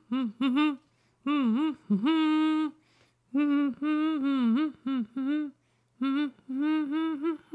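A voice humming a wordless tune in several short melodic phrases, with some notes held and others sliding up and down.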